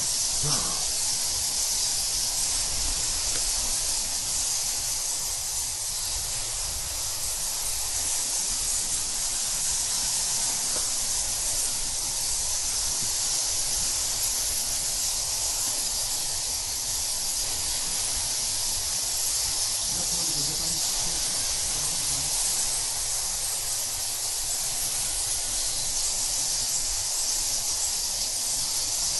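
A colony of thousands of roosting cave bats squeaking and chittering together, a steady high-pitched hiss-like din.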